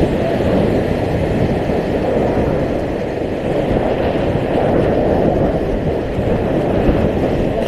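Steady, loud rush of whitewater rapids around an inflatable raft, with a deep rumble.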